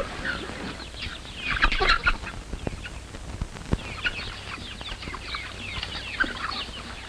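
A flock of chickens clucking, many short calls overlapping irregularly.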